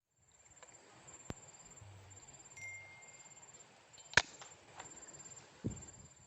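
A single sharp crack about four seconds in, of the kind an air rifle shot makes, over a quiet outdoor background with a faint steady high insect-like tone; a small click comes earlier and a dull thump near the end.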